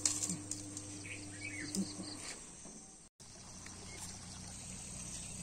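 Rural outdoor ambience with a few short bird chirps and insect sounds. A steady low hum runs through the first two seconds, and the sound drops out for an instant about three seconds in.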